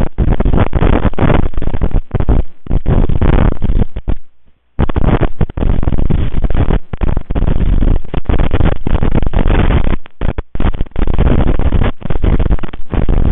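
Storm wind buffeting the nest camera's microphone: loud, rough rushing noise that surges and cuts out in gusts, with a brief lull a little past a third of the way in.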